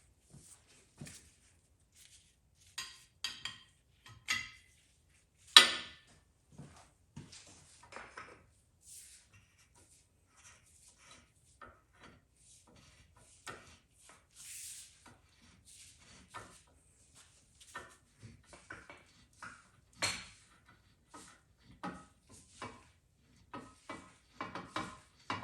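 Irregular clicks, taps and scrapes of metal tools being handled during cam bearing removal setup, with a sharp knock about five and a half seconds in and another about twenty seconds in.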